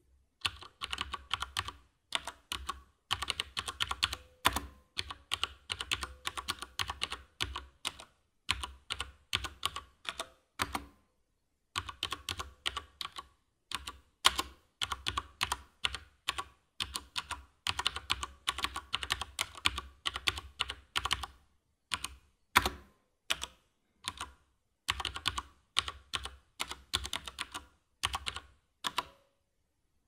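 Typing on a Cooler Master mechanical keyboard: rapid keystroke clicks in runs, starting about half a second in, with brief pauses between runs.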